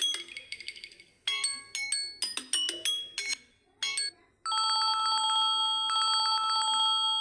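Samsung Galaxy A02 ringtones playing from the phone's speaker. First comes a melody of quick, chime-like struck notes. After a brief pause about four seconds in, a held chord with a fast buzzing pulse follows.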